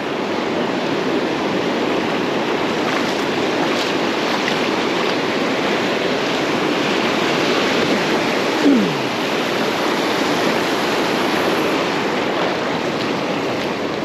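Surf breaking and washing up the beach: a steady rush of waves. About two-thirds of the way in, one brief tone slides downward.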